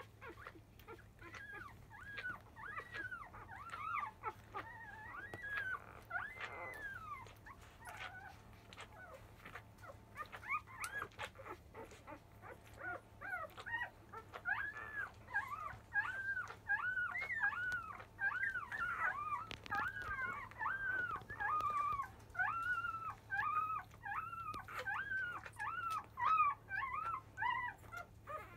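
Five-day-old Labrador Retriever puppies squealing and whimpering as they jostle to nurse from their mother: many short cries that rise and fall in pitch, scattered at first, then coming thick and fast from about halfway.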